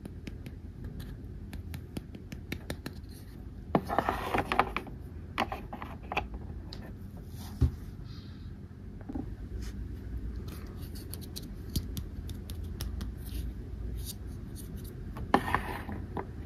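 Small plastic dollhouse furniture being handled and set down on the toy house's plastic floor: light clicks and taps, with two short bursts of scraping handling about four seconds in and near the end.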